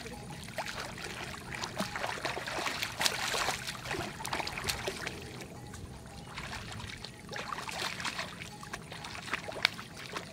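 Water splashing and sloshing in a shallow pond as a hooked fish thrashes at the surface, with many irregular sharp splashes.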